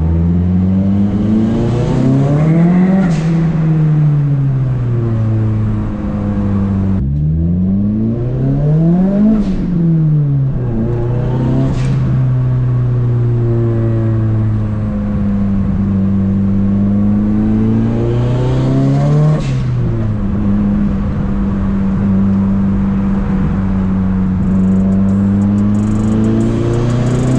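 Turbocharged SR20DET four-cylinder of a Nissan Silvia S13 accelerating hard, heard from inside the cabin. The engine note climbs and drops several times through gear changes, then holds a steady cruise for the last several seconds.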